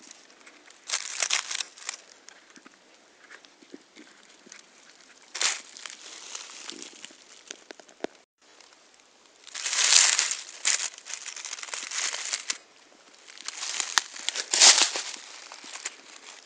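Dry fallen leaves rustling and crackling in irregular bursts as a hand moves through the leaf litter, with the loudest crunches a little past the middle and again near the end.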